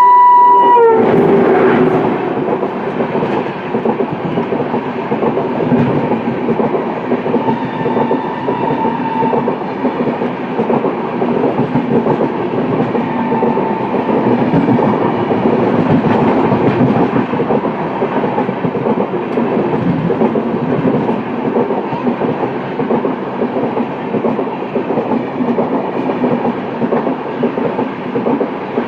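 A WAP7 electric locomotive's shrill horn cuts off about a second in. A passing train then rattles steadily over the rails.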